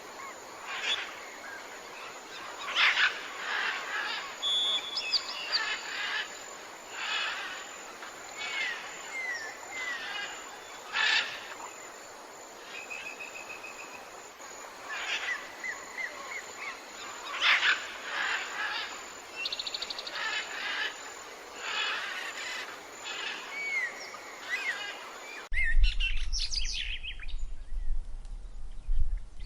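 Several wild birds singing and calling: repeated chirps, short rising and falling whistles and trills over a steady outdoor hiss. About four seconds before the end the recording cuts abruptly to another one with a low rumble under more bird calls.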